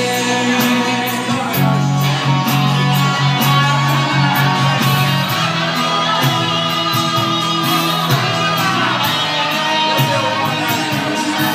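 Instrumental break in a live pop-rock ballad: guitar over bass notes and a steady drum beat, with no singing.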